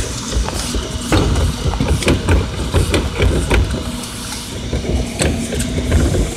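Rear-loading garbage truck's hydraulic cart tipper lifting a wheeled trash cart and tipping it into the hopper, over the steady running of the truck's engine. A quick run of clattering knocks in the middle as the cart is shaken out.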